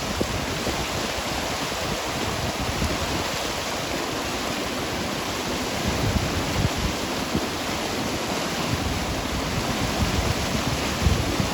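Running water rushing steadily, with a few brief low thumps a little after a third of the way in and near the end.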